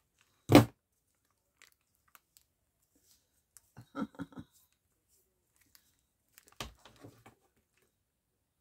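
A single sharp knock about half a second in, then two short runs of quick clicking and crunching handling noises, one near the middle and one near the end.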